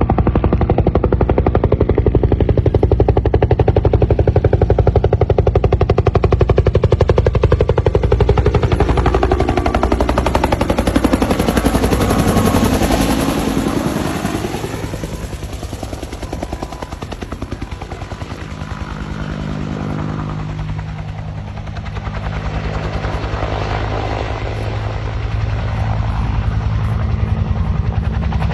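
Bell UH helicopter's main rotor beating rapidly with turbine whine as it flies past: its pitch drops about halfway through and it grows fainter, then louder again near the end.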